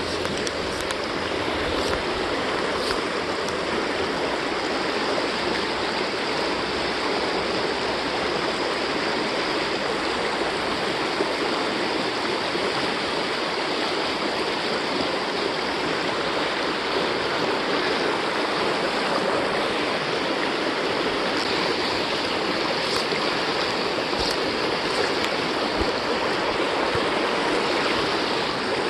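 Shallow creek water rushing steadily over a rocky riffle close by.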